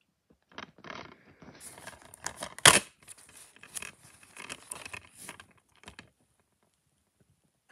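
A plastic DVD case being handled and opened: rustling, scraping and a string of clicks, with one loud sharp snap a little under three seconds in.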